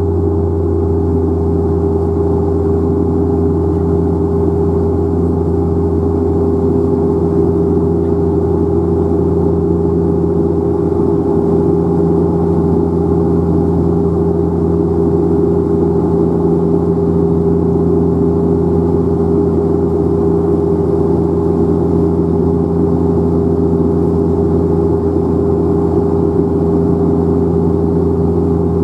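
Cabin drone of a De Havilland Canada Dash 8 Q400's six-bladed propeller and PW150A turboprop engine during the climb after take-off, heard from inside the cabin beside the propeller. It is a steady, deep hum with several held tones over a rumble.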